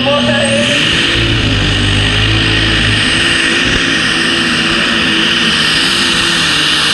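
Modified pulling tractor's engine at full power, hauling the weight sled down the dirt track. The engine note rises as it launches, and a high whine climbs in the first second and then holds.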